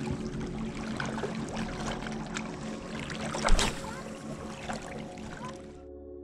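Seawater lapping and trickling among shoreline rocks, full of small clicks, over a steady low engine drone from an approaching ferry. A single sharp knock about three and a half seconds in, and the sound fades near the end.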